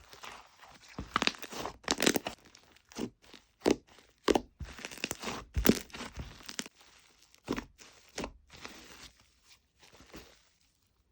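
Fluffy slime being squished and pulled apart by hand, with irregular crackling, popping and tearing sounds. It goes quieter near the end.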